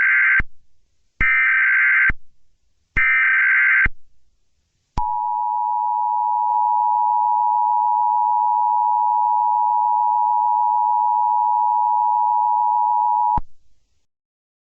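Emergency Alert System SAME header: three short bursts of digital data, each a little under a second long, encoding the snow squall warning. These are followed about five seconds in by the EAS two-tone attention signal, a steady dual tone held for about eight seconds that cuts off suddenly.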